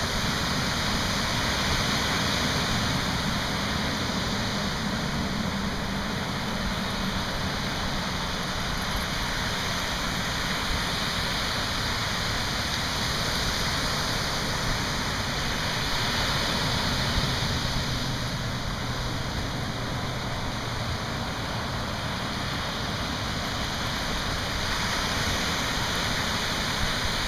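Ocean surf breaking and washing up the beach: a steady, even rush of waves.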